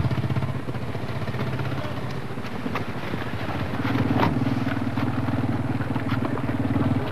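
KTM enduro motorcycle engine running steadily, its pitch rising a little about four seconds in.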